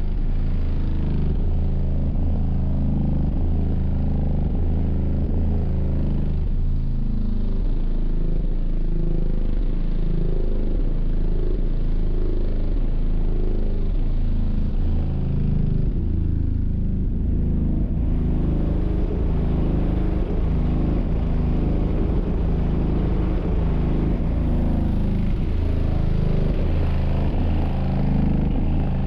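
Six Sundown ZV5 15-inch subwoofers playing bass-heavy music loud, heard from just outside the vehicle with the microphone against its body. The deep bass is steady with a repeating beat.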